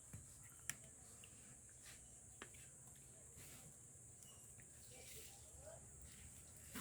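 Near silence, broken by two faint sharp clicks, one under a second in and another about two and a half seconds in.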